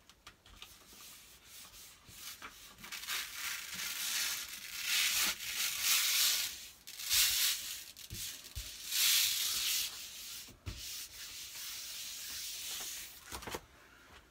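Paper backing being peeled off a self-adhesive poster while a hand rubs and smooths the poster onto a door: a run of dry rubbing and rustling strokes, loudest in long swipes about five and nine seconds in.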